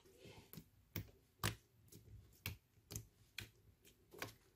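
Sticky slime being squeezed and kneaded by hand, giving a string of short sharp clicks and pops, about two a second.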